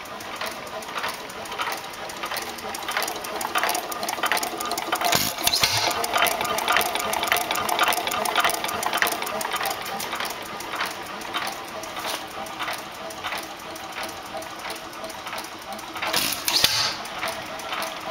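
1914 International Harvester Titan 2½ hp hopper-cooled hit-and-miss engine running, with a rapid, steady mechanical clicking. Two louder bursts come, about five seconds in and again near the end.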